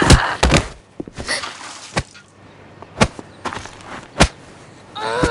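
Cartoon fight sound effects: a handful of sharp punch-and-thud blows a second or so apart, with scuffling, and a child's cry starting near the end.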